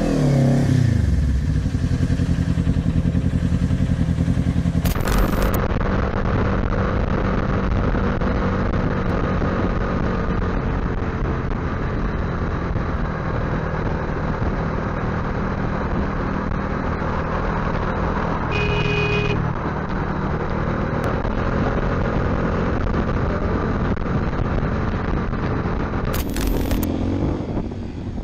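Motorcycle engines heard from the rider's position while riding in traffic, with wind rush. The engine pitch falls as the bike slows at the start, then holds steady through a long stretch of highway cruising. A brief beep sounds about two-thirds of the way in.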